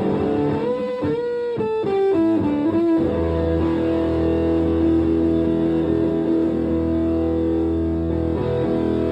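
Electric guitar played through a green Russian Big Muff fuzz pedal into a valve-style combo amp, heavily distorted. A sliding single-note lead line comes first, then about three seconds in a held fuzzed note or chord sustains thickly, with a change near the end.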